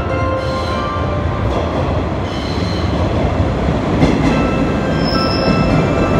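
Former JNR 413 series electric multiple unit pulling into a station platform, its wheels and running gear rumbling louder as it comes close, with a short high squeal about five seconds in.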